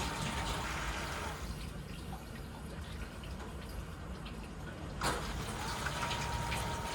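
Grundfos SCALA2 water booster pump running with water flowing and a thin steady whine. The whine stops about a second in, and about five seconds in there is a sharp click as the pump starts again and the whine returns.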